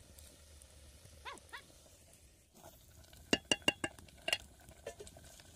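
Metal ladle clinking against the rim of a round aluminium cooking pot as the food is stirred, a quick run of about five clinks a little past halfway.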